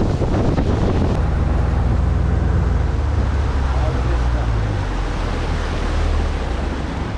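Bass boat's outboard motor running at speed, with wind buffeting the microphone and water rushing past the hull. The engine's steady tone settles in about a second in and eases a little near the end.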